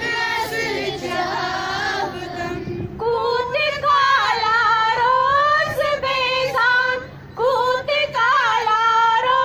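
Women and schoolgirls singing a morning-assembly prayer together, one melody line with no clear instruments, growing louder about three seconds in.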